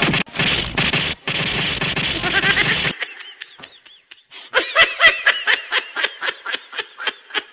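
Laughter in quick repeated bursts, about four a second, through the second half. It follows a dense noisy stretch that cuts off abruptly about three seconds in.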